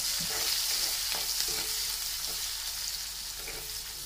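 Chopped onions sizzling in hot oil in a metal karai, stirred with a spatula that scrapes and taps against the pan now and then.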